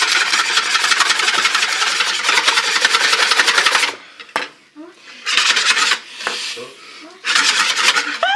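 Wire balloon whisk beating pancake batter by hand in a bowl: fast rhythmic scraping and slapping strokes. One long bout stops about four seconds in, followed by two shorter bursts of whisking.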